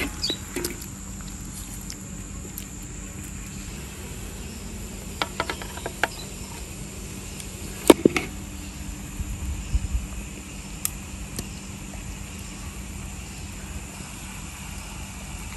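Stainless-steel tongs clinking against a metal wok a few times as chicken pieces are lifted out, with a cluster of light clicks about five seconds in and one sharp clink about eight seconds in, over a steady faint background hum.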